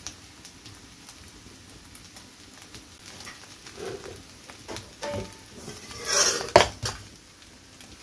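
Steel cooking pan being lifted off a clay wood-fired stove with a cloth: a few light metal knocks, then a louder scrape and clatter about six seconds in.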